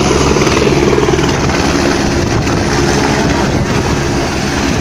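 A single-engine helicopter running on the ground with its main rotor turning: a loud, steady turbine and rotor-blade noise.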